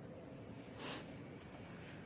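Quiet room hum and hiss, with one short sniff about a second in.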